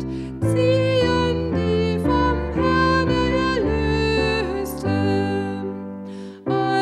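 Roland FP-4 digital piano playing slow, sustained hymn chords that change every second or so. The sound fades briefly before a new chord comes in near the end.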